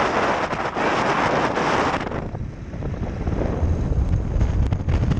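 Wind buffeting the microphone on a moving motorcycle, over the low rumble of a 1998 Harley-Davidson Electra Glide's Evolution V-twin engine. About two seconds in, the wind noise drops and the engine rumble comes forward.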